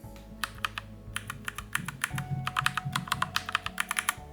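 Keys on a Machenike K600G mechanical keyboard clacking in quick succession, a mix of Gateron brown tactile switches and a swapped-in Gateron yellow switch, so the two switch sounds can be compared. The presses start about half a second in and speed up in the second half.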